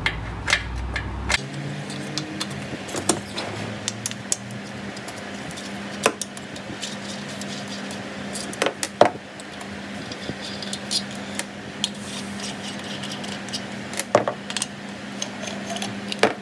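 Scattered small metal clicks and knocks as a T-handle hex key undoes the bolts holding the reed cage on an IAME KA100 kart engine, with the loose bolts and parts set down on a steel workbench.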